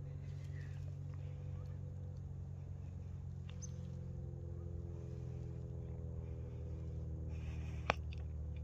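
Low steady hum of a distant motor, its pitched drone growing a little clearer partway through, with a single sharp click near the end.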